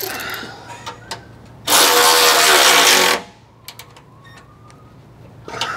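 Cordless power tool runs for about a second and a half, driving the nut onto the slider's frame-mount bolt, followed by a few light metal clicks.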